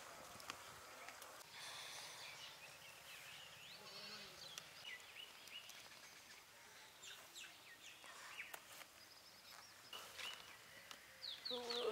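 Faint outdoor quiet with scattered small chirps. Near the end a goat lets out a loud bleat that falls in pitch.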